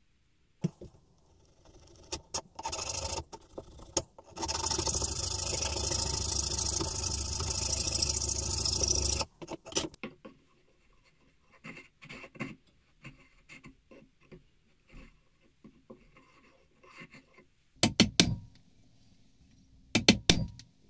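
Hand woodworking tools working beech. After a few scrapes comes about five seconds of continuous rasping, then many short paring cuts and clicks, and a few sharp knocks near the end.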